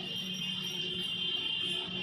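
Background music with steady held notes, one high and one low.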